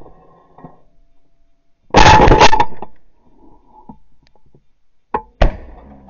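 Shotgun fire while goose hunting: a loud blast about two seconds in, then two sharp shots in quick succession near the end, the second louder.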